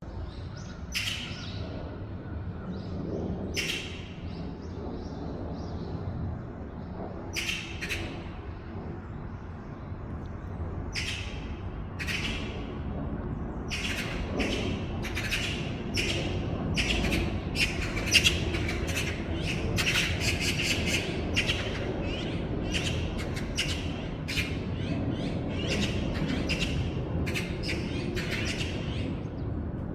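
Wild forest birds calling in a chorus of short, sharp calls. The calls come a few at a time at first and grow much denser from about halfway through, over a steady low background noise.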